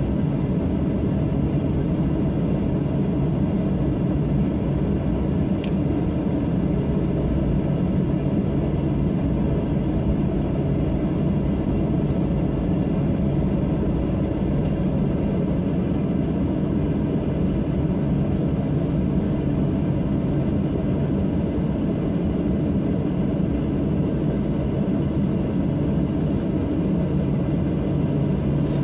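Steady low rumble of a Boeing 737-800's CFM56-7B jet engines and airflow, heard from inside the cabin at a window seat beside the engine. The noise holds even, with no rise or fall in thrust.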